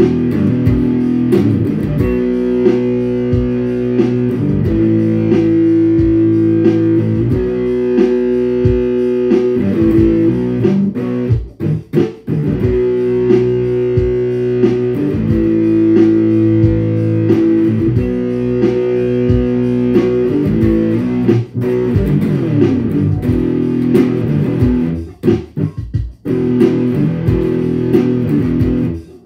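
Solo electric guitar in the alternate tuning D G D G Bb D (open G minor), improvising low-register riffs with a couple of brief pauses.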